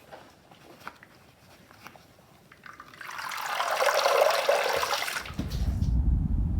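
A rush of running water about halfway through, lasting some three seconds. Faint small handling clicks come before it, and a steady low rumble starts near the end.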